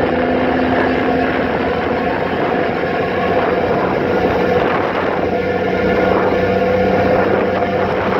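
Passenger ferry under way: its engines hum steadily beneath a constant rush of churning water and wind.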